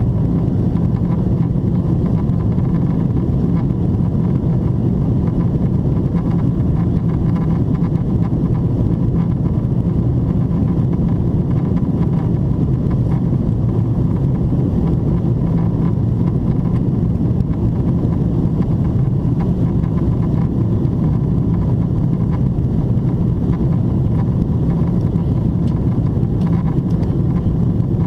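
Steady cabin noise inside a Boeing 777-300ER in descent: an even low rumble with a faint steady tone above it.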